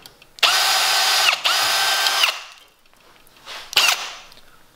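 Milwaukee M18 cordless drill drilling into the head of a solid rivet through a rivet drill guide, in two short runs that each spin up and wind down. A brief knock follows about a second before the end.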